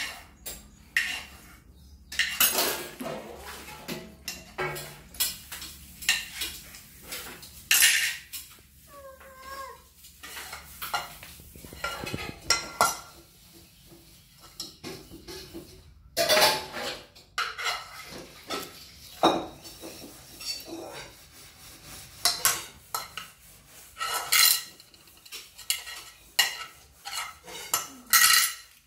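A steel spoon scraping and clinking against a non-stick kadai (deep frying pan), in irregular strokes with short pauses between them.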